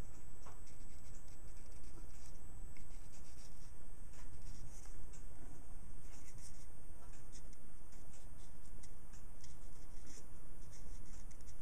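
Marker pen scratching on the rim of a small brass clock wheel, a run of faint, quick, irregular strokes.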